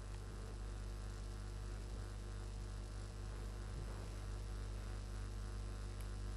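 Steady low electrical hum, like mains hum, over a faint hiss.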